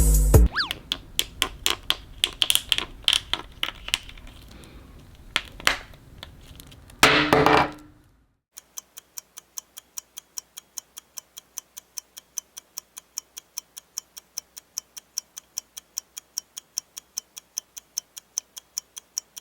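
Clock-ticking sound effect, sharp regular ticks about three a second over dead silence, starting about eight seconds in. Before it, the last of the outro music fades out with scattered clicks and a short loud burst about seven seconds in.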